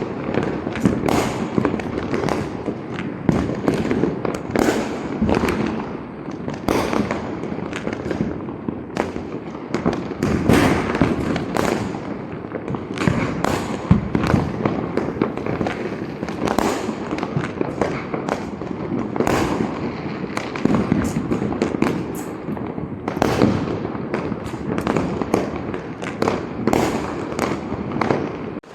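Fireworks and firecrackers going off all around, a dense, unbroken run of overlapping bangs and crackles.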